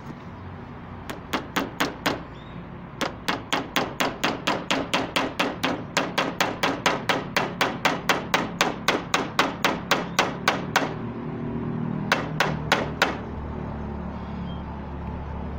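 Claw hammer striking a nail driven through a plastic bottle cap into a corrugated PVC roofing sheet. There are a few taps first, then a long run of quick, even blows about four a second, then three last blows near the end.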